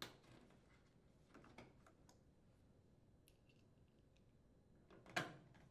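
Faint, scattered clicks and taps as a plastic drain hose retainer is fitted and a screwdriver is brought to its mounting screw, with one louder knock about five seconds in.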